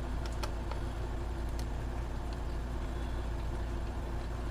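A steady low hum with a few faint, light clicks in the first second and a half, typical of a small Phillips screwdriver turning tiny laptop screws.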